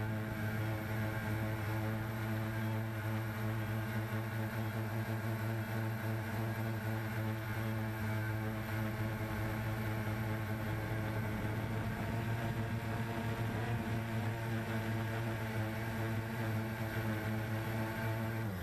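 CX-20 quadcopter's motors and propellers running steadily in flight, an even buzzing hum that holds one pitch.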